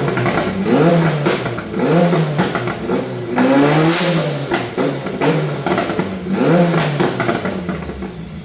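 Mitsubishi Lancer Evolution VIII MR's turbocharged 4G63 four-cylinder revving in short blips about once a second, with one longer rev near the middle and crackles between the blips.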